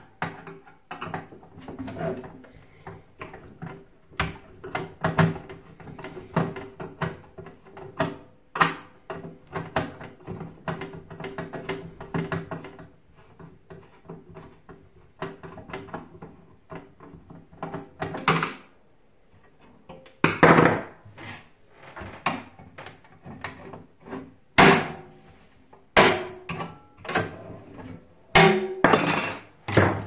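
Screwdriver turning a screw in a microwave oven's sheet-metal casing: a run of irregular small clicks and scrapes, with several louder sharp metallic knocks in the second half.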